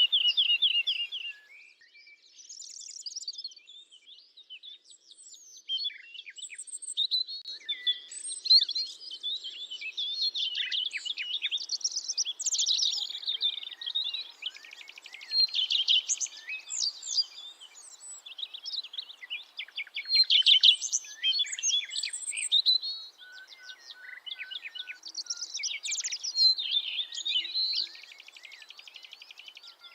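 Several small songbirds singing and calling over one another: quick chirps, whistles and fast rattling trills. The song comes in bursts, loudest at the very start and about two thirds of the way through.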